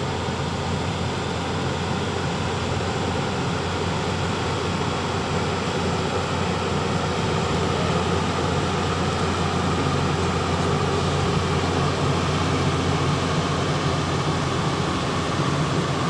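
Hydraulic excavator's diesel engine running steadily under work as the boom moves, a little louder in the second half.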